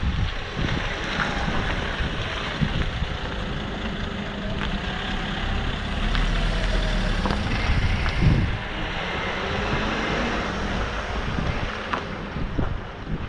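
Nissan NT400 Cabstar truck's diesel engine running as the truck drives by over wet ground. It is loudest as it passes close about halfway through, then fades as it moves away.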